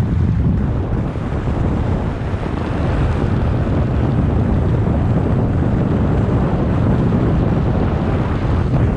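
Steady wind buffeting the microphone of a GoPro action camera carried by a snowkiter gliding over hard snow: a loud, continuous low rumble with no breaks.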